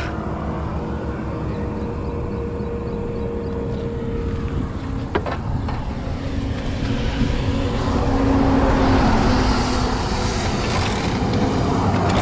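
Roadside motor traffic: a vehicle engine runs steadily with a low hum. The sound swells as a vehicle passes, between about seven and eleven seconds in, and there is a single sharp click about five seconds in.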